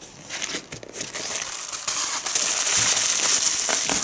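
Packaging crinkling and rustling as it is handled, a dense crackle that grows louder about a second in.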